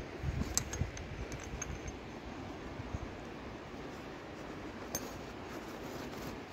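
A few light clinks of pottery shards knocking together, mostly in the first two seconds and once more near five seconds, over a steady wash of shallow river water.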